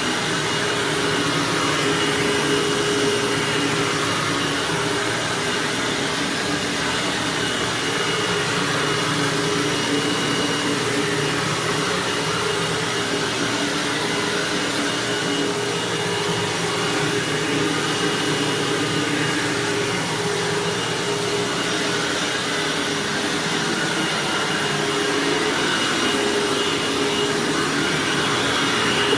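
Hoover WindTunnel bagged self-propelled upright vacuum running steadily over carpet: an even motor and airflow noise with a thin high whine and a low hum running through it.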